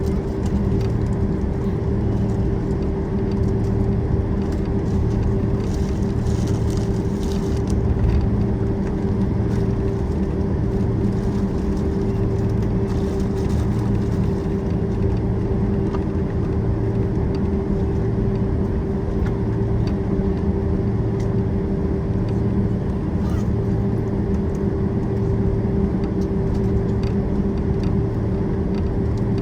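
Cabin noise inside a Boeing 767-400ER taxiing: a steady engine and air-conditioning hum with one held tone and a low throb that beats slowly and evenly.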